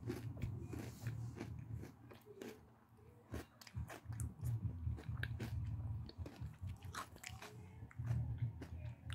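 Close-up biting and chewing of a mini Drumstick ice cream cone: crunching of the cone and irregular wet chewing clicks, easing off briefly about two seconds in.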